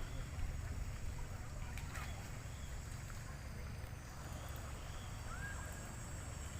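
Seaside ambience dominated by a steady low rumble of wind on the microphone over an even background hiss, with a short rising whistle about five seconds in.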